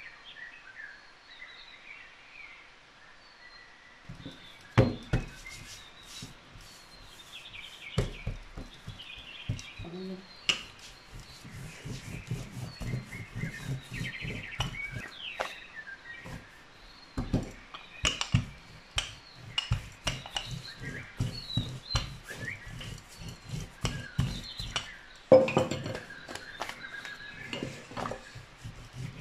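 Birds chirping and singing from a nature-sound background track, over the knocks and low rumble of a wooden rolling pin rolling out pizza dough on a floured worktop. Two sharp knocks, about five seconds in and near the end, are the loudest.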